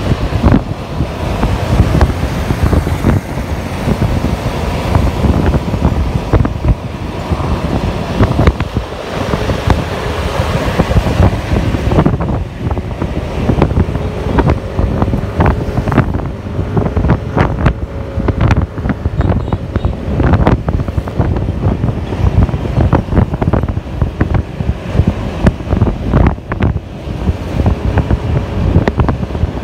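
Heavy wind buffeting on the microphone of a Yamaha scooter riding at about 55–60 km/h, coming in uneven gusts throughout.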